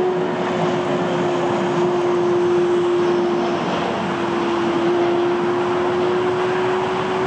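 Airbus A321 jet engines at approach power as the airliner passes on final approach: a steady rushing jet noise with a held whine running through it.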